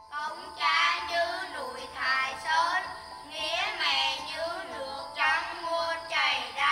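Music with a high singing voice: several wavering sung phrases over held instrumental tones.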